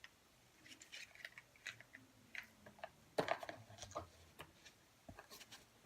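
Small clicks and rustles of a boxed cosmetic product being handled and unwrapped, with a louder cluster of clicks about three seconds in.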